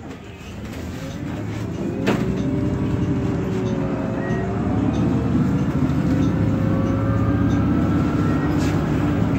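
A 2019 Nova Bus LFS CNG city bus, heard from inside, pulling away and accelerating: the engine rumble builds over the first two seconds, then a drivetrain whine rises in pitch in steps. There is a single knock about two seconds in.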